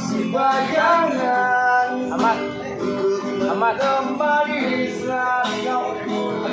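A man singing a slow pop ballad in a full voice, accompanying himself on an acoustic guitar played in chords.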